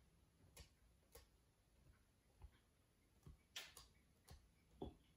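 Faint, irregular soft taps of a paint-loaded sponge dabbing acrylic paint onto a canvas board, about eight dabs, the firmest near the end.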